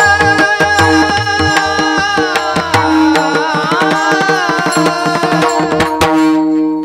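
Bhajan music: tabla strokes under steady held accompanying tones, with a voice bending through a long melodic phrase in the middle. The music breaks off briefly near the end.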